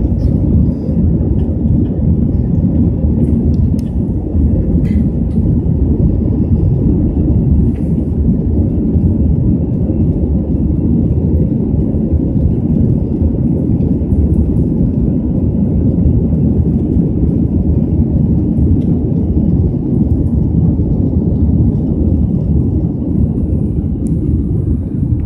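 Airbus A320 cabin noise during the climb after takeoff: a loud, steady, low rumble of engines and rushing air.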